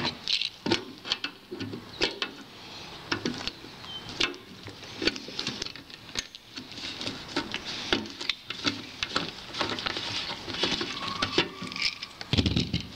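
Irregular clicks, taps and scrapes of a screwdriver prying at the plastic spout seal of a rectangular metal can, with a dull thump shortly before the end.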